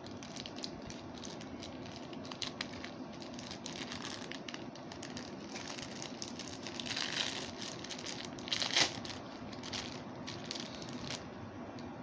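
Clear plastic bag crinkling and rustling in the hands as it is handled and opened, with louder bursts of crinkling about seven and nine seconds in. The crinkling stops about a second before the end.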